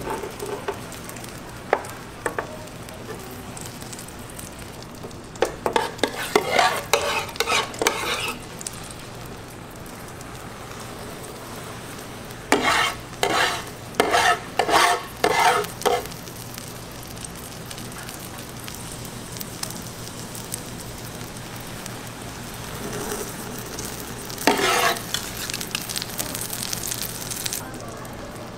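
Rolled egg omelette sizzling steadily on a nonstick griddle pan, with three runs of quick scraping and tapping strokes from plastic spatulas pushing and rolling the omelette across the pan.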